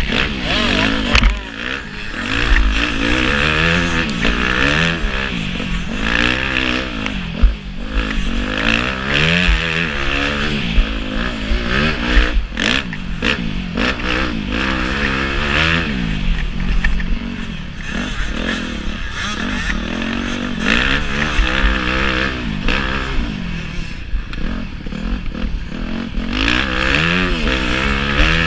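Motocross bike engine heard up close from the rider's helmet, revving up and dropping back again and again as the rider accelerates, shifts and brakes around the track, with a few sharp knocks.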